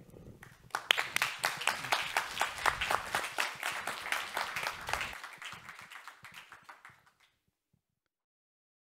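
Audience applauding, starting about a second in and dying away about seven seconds in.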